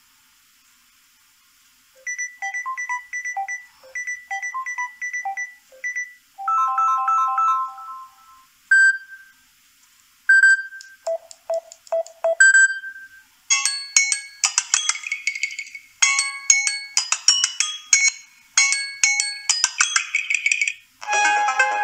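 Samsung Galaxy A41 preset ringtones and notification tones playing one after another, starting about two seconds in. There are short repeated chiming phrases, a few single chimes, then a busier rhythmic melody near the end.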